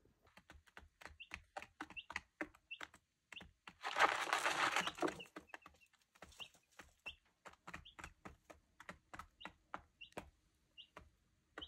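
Young chicks in a brooder giving short high cheeps now and then, over a string of light clicks and taps from pecking and scratching in wood shavings. A rustle lasting about a second comes around four seconds in.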